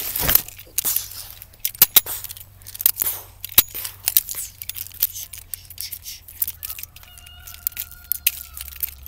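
Handling noise from toy cap-gun revolvers: irregular clicks and knocks with rustling. A faint steady tone comes in for about two seconds near the end.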